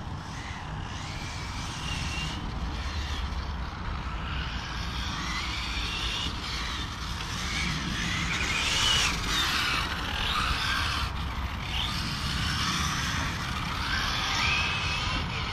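Brushless electric motor of a 1/8-scale RC GT car (Serpent SRX8 GTe) running laps, a high whine that rises and falls again and again as it accelerates and brakes through the corners, over a low rumble.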